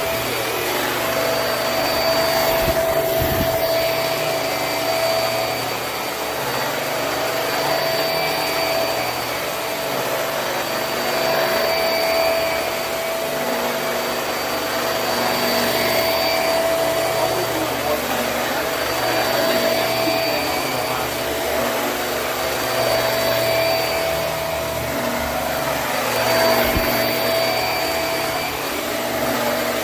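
Hoover High Performance Swivel upright vacuum running on carpet, a steady motor whine over the rush of suction. The level swells and dips every few seconds.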